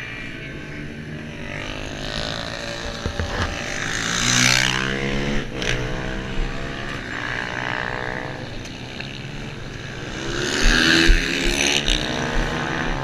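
Piaggio SKR racing scooter engine revving hard and pulling through the gears. Its pitch climbs twice with a drop in between, each climb peaking in a louder swell.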